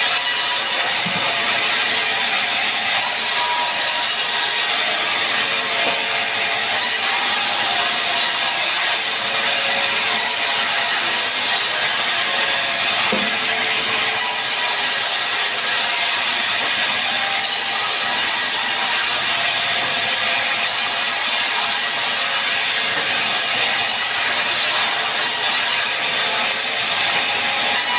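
Sawmill band saw running and cutting sengon (albizia) wood into planks: a steady, loud mechanical saw noise without breaks.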